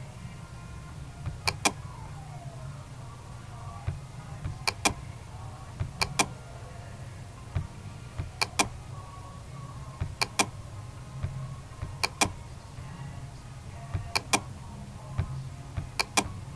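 Computer mouse clicking, mostly as quick double-clicks every one to two and a half seconds, over a steady low hum.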